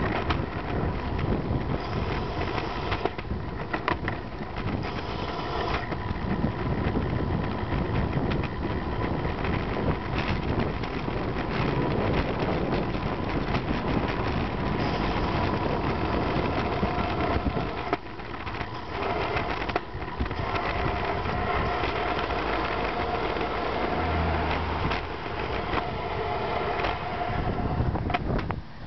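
Wind rushing over the microphone of a moving road bike, mixed with the steady noise of motor traffic running alongside on the bridge roadway, easing briefly about two-thirds of the way through.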